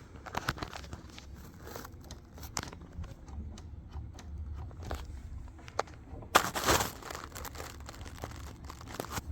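Handling noise of parts being worked by hand: scattered light clicks and crinkling, with a louder rustle about six seconds in.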